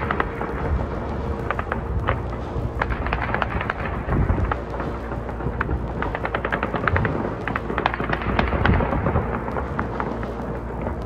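Repeated bursts of rapid gunfire, each a quick run of sharp cracks, recurring every second or two.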